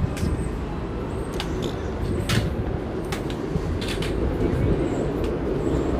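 New York City subway train running: a steady low rumble with scattered sharp clicks and knocks.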